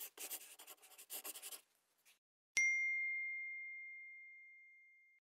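Logo-reveal sound effect: pencil-on-paper scratching for about a second and a half, then a single clear ding that rings for about two and a half seconds, fading, and cuts off.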